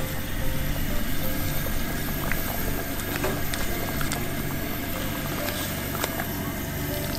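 Coleman 413H liquid-fuel two-burner camp stove burning steadily under a simmering Dutch oven, with a few light clinks of a metal spoon against a small cup.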